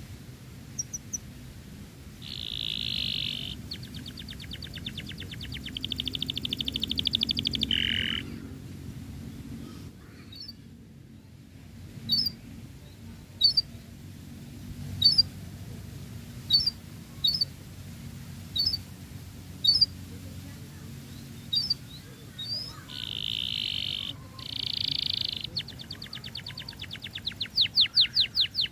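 Domestic canary singing: dense buzzing rolls and fast trills, then a string of short, sharp high notes about one a second, then more rolls and a quickening trill near the end.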